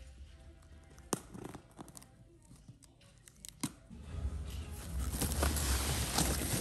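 Cardboard box flaps and crumpled kraft paper packing being handled: a few sharp clicks and light rustles, then from about four seconds in a louder, continuous crinkling and rustling as the paper packing is pulled back.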